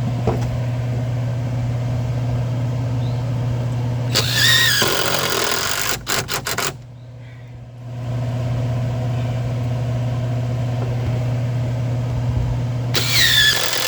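An engine hums steadily throughout, cutting out briefly about halfway. Over it, a power driver runs twice in bursts of about a second, each ending in a falling whine as the motor spins down, with a few sharp clicks between them, typical of screws being driven into the building's wood.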